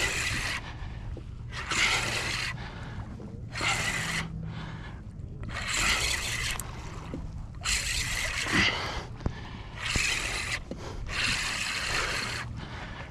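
A person breathing hard close to the microphone, a loud breath about every two seconds, over a faint steady low hum.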